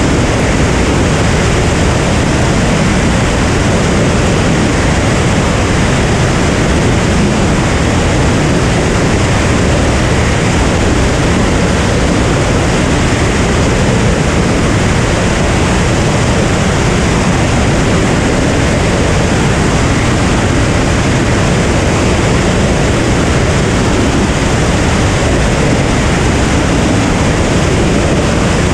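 Steady rush of wind and propeller and engine noise from a Cirrus SR22 in flight, picked up by a camera mounted outside the airplane.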